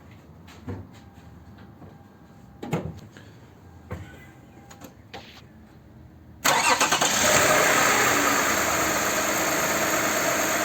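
Lexus RX 350's 3.5-litre V6 started about six seconds in: a short uneven catch, then a steady idle. It is a start after about 20 minutes standing, the test for the intake VVT-i phaser (cam gear) rattle, which the repair has cured. A few small knocks come before it.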